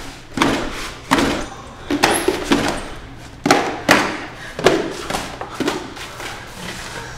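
A series of about eight heavy thuds at uneven intervals, each ringing out briefly in a reverberant room.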